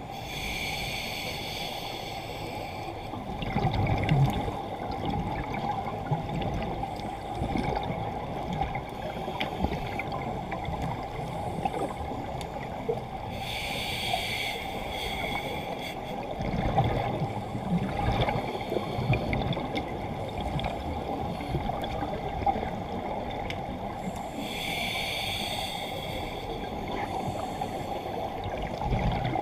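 Open-circuit scuba regulator breathing, heard underwater: three slow breaths, each a hissing inhale through the regulator followed by a low, gurgling rumble of exhaled bubbles. A steady low hum runs underneath.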